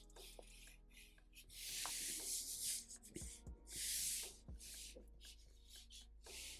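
Felt-tip marker scratching across paper in a run of quick strokes, mostly short, with two longer, louder strokes about a second and a half in and about four seconds in.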